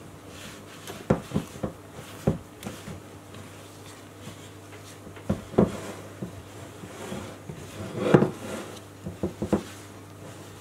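Gloved hand mixing stiff cookie dough in a glass bowl: rubbing and squishing, with irregular knocks of the hand against the bowl.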